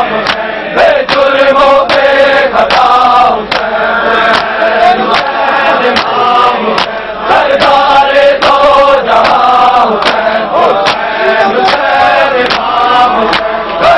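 A crowd of men chanting a mourning lament in unison, with the sharp slaps of hands beating on bare chests (matam) keeping time at about two beats a second.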